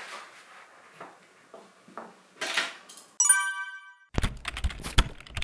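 Faint rustling and a short whoosh, then a bright bell-like ding a little after three seconds in that rings for nearly a second, followed by a rapid clatter of typing-like clicks with low thumps.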